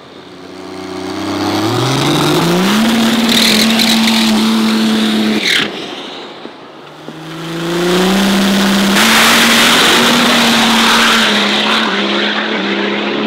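Cummins diesel drag-race engine revved up and held at a steady high RPM for a few seconds while building boost on the line. It drops off sharply, then is brought back up and held again, with a loud rush of noise over it for a couple of seconds.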